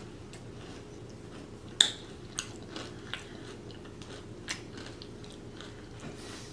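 Close-miked chewing and biting of fried Chinese takeout food, with several sharp crunches; the loudest comes about two seconds in.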